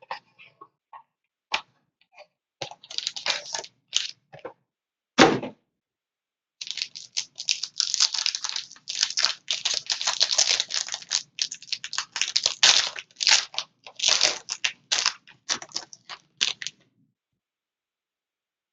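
Trading-card box packaging being opened: scattered clicks and a sharp thump about five seconds in, then a long stretch of quick crinkling and tearing of plastic wrap and card stock that stops shortly before the end.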